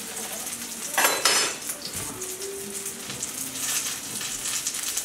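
Chickpea omelette sizzling steadily in oil in a nonstick frying pan. About a second in, a metal spatula clatters and scrapes against the pan; this is the loudest sound.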